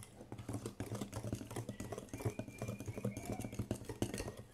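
Wire whisk beating thick cake batter by hand, its wires tapping and clicking fast and unevenly against the sides of the bowl.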